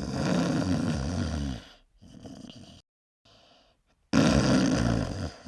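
A person's voice making low growling sounds in two bursts, the first about a second and a half long and the second about a second, with abrupt cuts between them.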